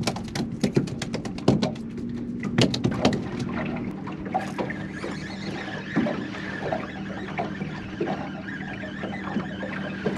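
Small boat on open water: a fast run of clicks in the first few seconds, then water washing against the hull over a steady low hum while a hooked speckled trout is fought on a bent spinning rod.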